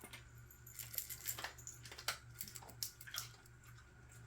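Faint, scattered light clicks and taps of tiny plastic craft pieces being handled and picked out, over a low steady hum.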